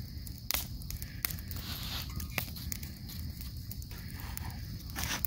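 Wood fire crackling, with sharp, irregular pops every second or so over a low rumble.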